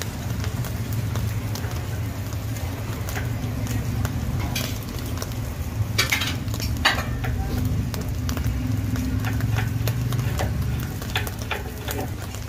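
Chicken fried rice frying in a wok, with a steel ladle scraping and clinking against the pan several times, the loudest knocks in the middle, over a steady low rumble.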